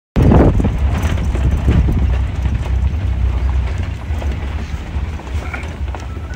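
Wind buffeting the microphone in a steady low rumble, with light crunching steps on a loose gravel track.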